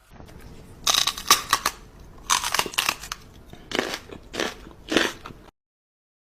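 Crisp crunching in four or five short clusters, like something brittle being bitten or crushed, cutting off suddenly to silence near the end.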